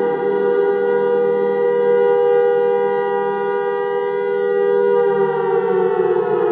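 Air raid siren sounding a loud, steady wail, whose pitch starts to fall from about five seconds in as it winds down.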